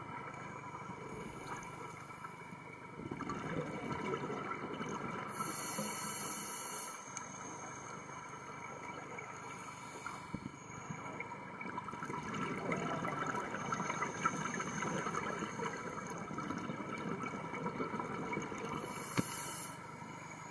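Underwater sound of scuba breathing: two short hisses of air through a regulator, about five seconds in and near the end, and the rumbling bubble noise of exhaled air between them, over a steady faint hum.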